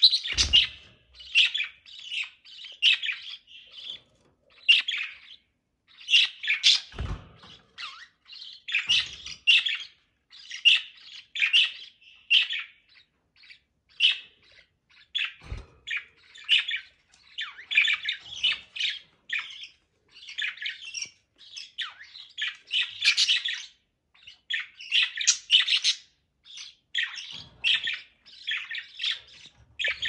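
Budgerigars chirping and chattering in a continuous run of quick, high, short calls, with a few brief low knocks in between.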